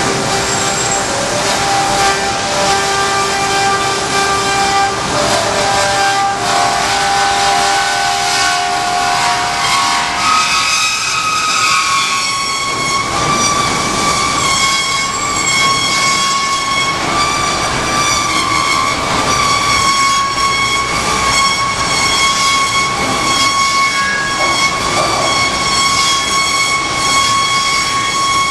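Hyd-Mech S-25P swing-frame horizontal band saw cutting through rectangular metal tubing: loud steady machine noise with a ringing squeal from the blade in the cut. About ten seconds in, the squeal shifts to a higher pitch and then holds steady.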